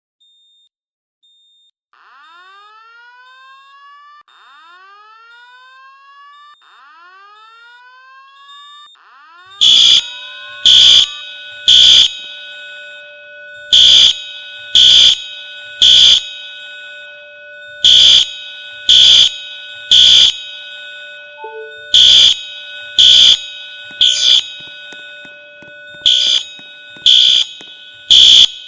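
A rising whoop tone repeats about every two seconds; then, about ten seconds in, a fire alarm starts sounding loudly in the three-pulse evacuation pattern: three blasts a second apart, a pause, and again, with a steady tone carrying on between the blasts.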